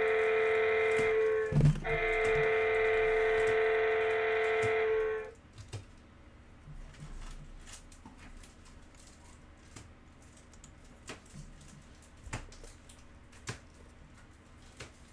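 A loud, steady electronic tone sounding several pitches at once, broken by a sharp thump about a second and a half in, that cuts off about five seconds in; after that only faint scattered clicks and knocks.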